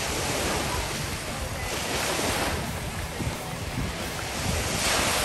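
Small waves breaking and washing up onto a sandy beach, the hiss swelling and easing every second or two, with wind buffeting the microphone.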